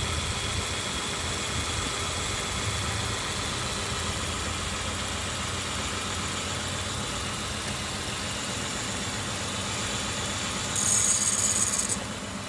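2003 Kia Sorento's V6 engine idling with a misfire, caused by a leaky spark plug boot letting the spark escape to the engine block instead of firing in the cylinder. Near the end a loud, high hiss sounds for about a second.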